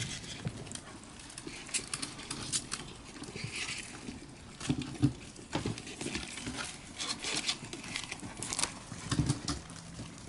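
Many golden hamsters moving about on newspaper bedding: rustling paper and a steady stream of small scratches and clicks.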